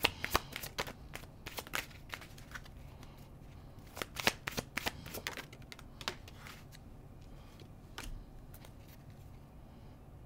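A deck of tarot cards being shuffled by hand: quick clusters of snapping, riffling clicks that grow sparser after about six seconds.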